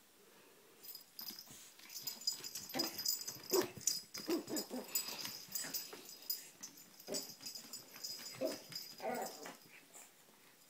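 Pug puppy making a run of short, harsh vocal noises in quick succession, loudest in the first half: its protest at the heart-shaped bowl beside it.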